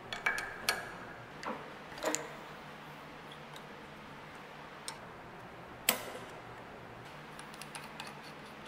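Metal-on-metal clicks and knocks from a spanner on an ER32 collet nut and its holder on a stopped lathe: several sharp clicks in the first two seconds, a loud knock about six seconds in, and light ticking near the end as the nut is turned off by hand. A faint steady hum sits underneath.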